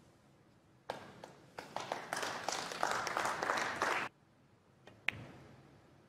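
Audience applause lasting about three seconds. About five seconds in, a single sharp click of snooker balls as a shot is played.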